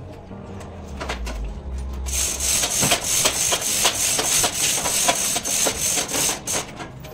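Hand tools working on the engine: a quick, irregular run of clicks and metal knocks, getting busier about two seconds in, over a low hum at the start.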